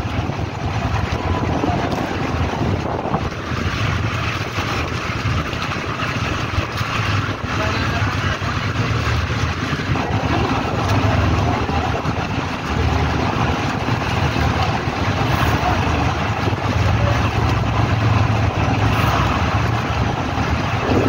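Wind buffeting the microphone over choppy sea, with the low, uneven rumble of an outrigger boat's engine underneath.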